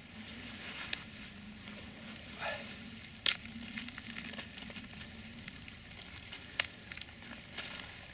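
Hands digging in damp soil and lifting out a clump of comfrey roots: rustling and crumbling earth with a few sharp clicks, the loudest about a third in. A steady high hiss stops about a third in.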